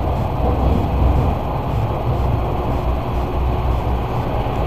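Toronto subway train running, heard from inside the passenger car: a steady, loud rumble of wheels on rail and car noise as the train moves out along the platform and into the tunnel.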